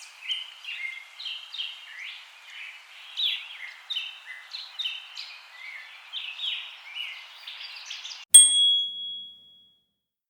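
Birds chirping and twittering in many overlapping quick calls over a soft hiss. About eight seconds in they cut off at a single bright bell-like ding that rings for about a second and a half.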